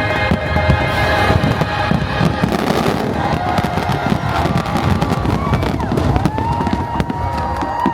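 Fireworks going off in quick succession: a dense run of bangs and crackles, with a couple of long whistling tones near the end. Orchestral music plays under the first moments and fades out.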